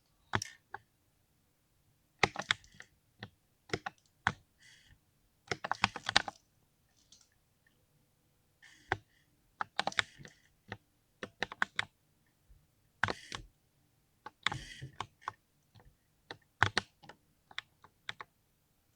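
Mechanical keyboard typed on in irregular bursts of keystrokes with short pauses between them, each key giving a creamy-sounding clack.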